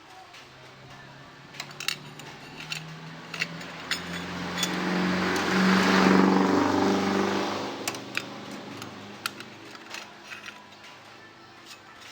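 A motor vehicle's engine passes by, rising over a few seconds and fading again, while metal parts click and clink sharply now and then as clutch plates and parts are handled.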